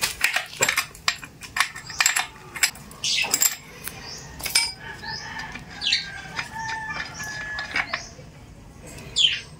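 Irregular clicks and taps of a screwdriver and fingers working a stiff spark plug cap off a gasoline chainsaw's engine, with short bird calls and chirps in the background.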